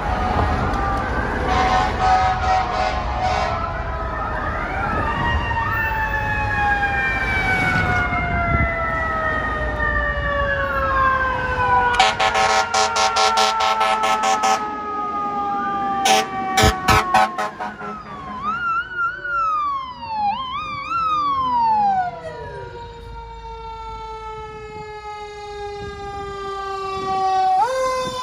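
Fire trucks' sirens: a mechanical siren's pitch falling slowly over many seconds and winding back up near the end, with an electronic wail rising and falling and a fast yelp for a few seconds. Two spells of rapid repeated horn blasts come about halfway through.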